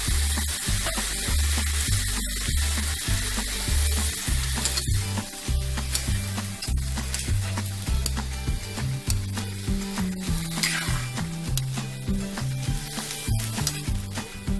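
Raw chicken pieces sizzling in hot oil in a frying pan as they are stirred and turned with a spatula, over background music with a bass line.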